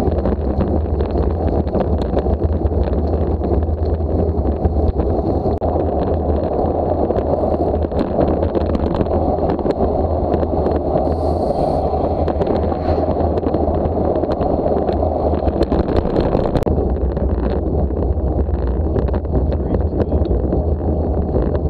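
Wind rushing over an action camera's microphone while riding a road bike at speed: a loud, steady low rumble.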